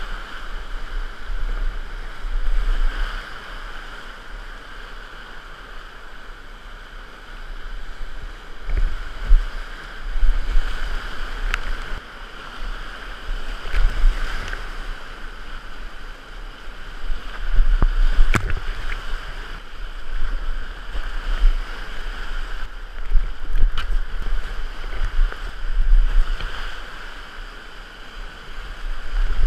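Whitewater rapids rushing around a kayak as it runs them, the noise rising and falling in surges, with low thumps and a few sharp clicks.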